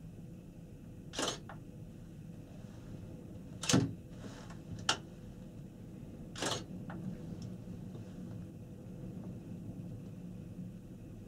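Panoramic Mont Blanc gondola cabin in motion: a steady low rumble with a faint steady hum, broken by four sharp clicks, the loudest about four seconds in.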